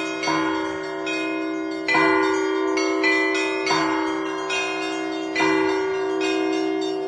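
Russian Orthodox church bells rung in a rhythmic peal, several bells of different pitch struck in turn. Heavier strikes fall about every two seconds, with lighter, higher strikes between, over the steady hum of a large bell.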